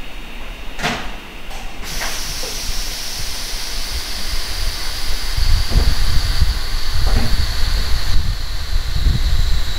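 Compressed air hissing steadily from a coupled Shinano Railway 115-series train, with a high whistle in the hiss that slowly sinks. Before it, about a second in, there is a sharp knock, then a lighter one. From about halfway a low rumble builds underneath.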